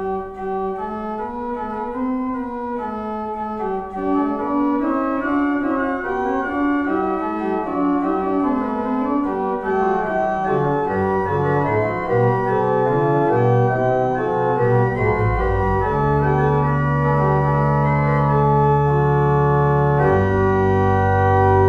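Organ playing a slow piece in sustained chords, with low bass notes joining about halfway through and deep held notes toward the end.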